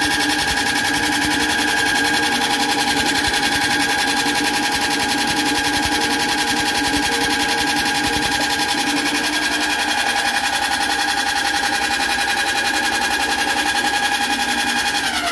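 Electric soybean hull-peeling machine running steadily with a fast, even whirring hum. Right at the end its pitch starts to fall as it is switched off at the plug and begins to wind down.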